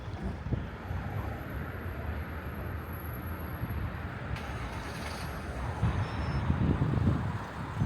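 Steady, fluctuating low outdoor rumble of background noise, with a single click about four and a half seconds in.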